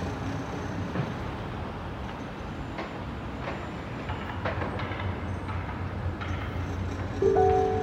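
Steady rumble of a moving vehicle heard from on board, with a few light clicks. Near the end a loud steady tone begins suddenly.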